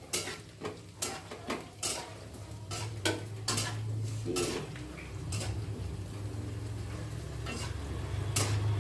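Wire spider skimmer and chopsticks clicking and scraping against a wok as kerupuk crackers fry in hot oil, with a quiet sizzle under the irregular clicks.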